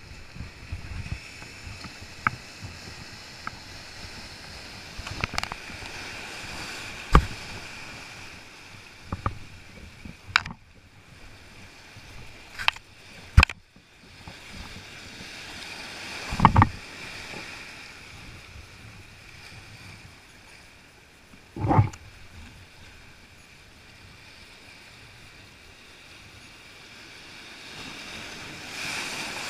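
Sea waves breaking and washing over shore rocks, with several sharp knocks and thumps close by; a wave breaks louder near the end.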